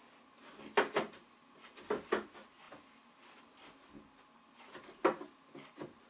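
Wooden panels of a flat-pack games table being handled and fitted together: a few sharp knocks and clunks, a pair about a second in, two more around two seconds, and the loudest about five seconds in.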